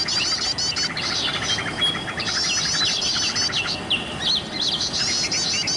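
Sooty-headed bulbul (kutilang) singing busily: a dense run of quick, high chirps and short whistled notes with rapid trills beneath, overlapping without a break.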